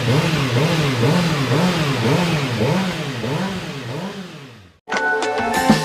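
Kawasaki ZX-6R's 636 cc inline-four engine being revved in quick repeated throttle blips, a little under two a second, its pitch rising and falling each time, then fading out; music comes in near the end.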